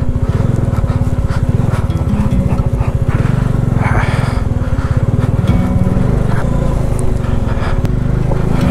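Single-cylinder motorcycle engine running steadily under load at low speed over rough, unpaved ground, with a rapid even firing pulse.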